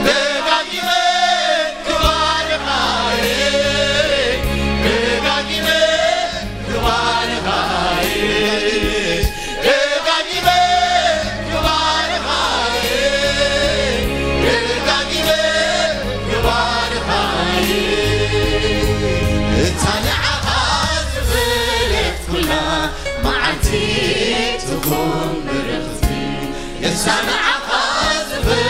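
Gospel worship song: a male lead singer and a robed worship team sing into microphones with a low bass line underneath.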